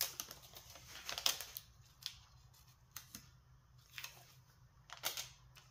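Clear packing tape being pulled off its roll and pressed down onto wood veneer sheets: a series of short crackling rasps, roughly one a second.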